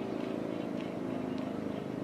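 Sterling M-5 fire siren sounding a low, steady tone that slowly sinks in pitch and loudness as it winds down.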